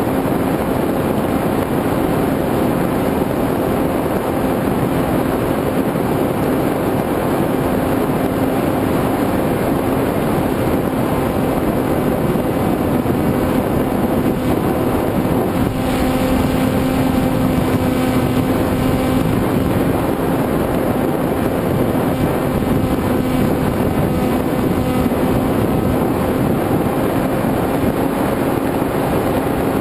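Electric motor and propeller noise of an FPV model aircraft in flight, heard through its onboard camera: a steady hum with wind rushing over the microphone, a little louder about halfway through.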